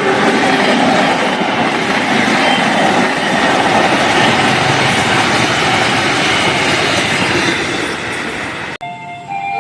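Argo Parahyangan passenger train passing close at speed: a loud, steady rush of wheels on the rails and cars going by, with the tail of its horn at the very start. The sound cuts off abruptly near the end and a train horn begins.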